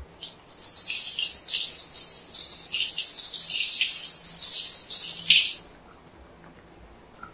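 Sambar simmering in a metal pan on a gas burner, giving a crackling, bubbling hiss that stops at about six seconds in.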